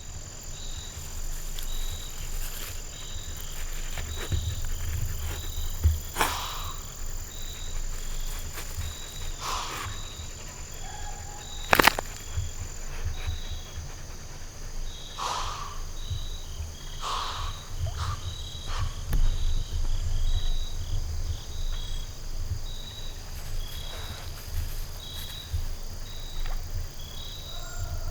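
Whitetail doe snorting: a handful of short, forceful blasts of air spread through the clip, the doe's alarm warning other deer of a threat she has scented. Crickets chirp steadily and a low wind rumble runs underneath, with one sharp click about twelve seconds in, the loudest sound.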